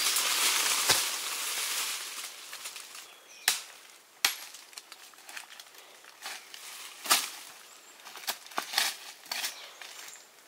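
Leafy tree branches rustling loudly for the first couple of seconds, then a string of sharp, irregular cracks and knocks of branches being chopped or snapped.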